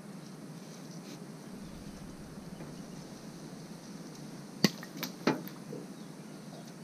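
Two sharp knocks of hard objects striking, less than a second apart, the first the louder, over a steady low background hiss.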